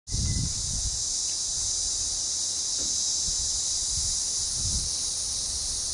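A steady, high-pitched insect chorus, with an uneven low rumble underneath.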